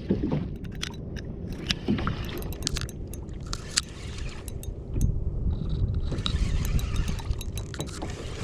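Kayak on choppy sea with wind and water rumbling on the microphone, louder from about five seconds in, over a scatter of small sharp clicks and knocks from fishing tackle being handled by hand.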